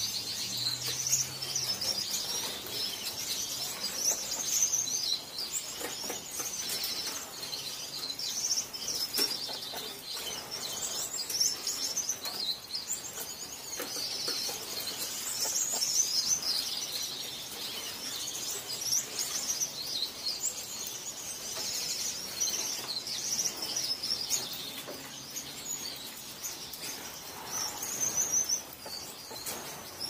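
Gouldian finches chirping and calling continuously, many quick high calls overlapping.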